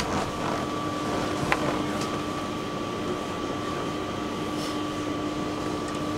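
Tram running with a steady hum that carries a constant low tone and a constant higher whine, and a single light click about a second and a half in.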